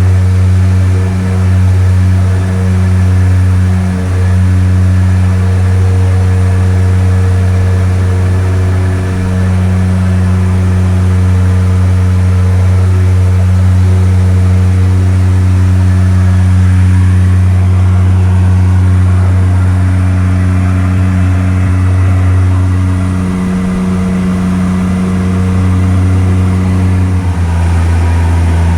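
A loud, steady engine drone with a strong low hum and its overtones, dropping slightly in pitch near the end.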